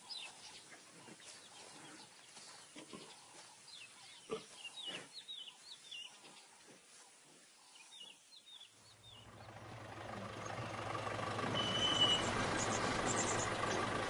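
Birds calling faintly with short, falling chirps. About nine seconds in, the steady hum of a vehicle engine comes in and grows louder.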